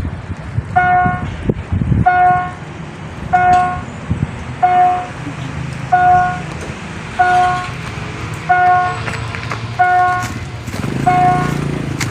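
Railway level-crossing warning signal sounding a short two-note-free electronic tone about every 1.3 seconds, over a low rumble that grows louder near the end.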